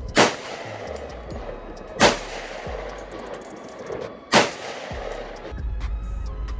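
Three single shots from an AR-15-style rifle, about two seconds apart, each followed by a short echo. Background music with a steady low beat comes in near the end.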